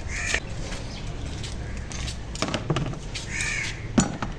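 A crow cawing twice, a few seconds apart, with light knocks and then a sharper knock near the end as a basket of bread is set down on a plastic table.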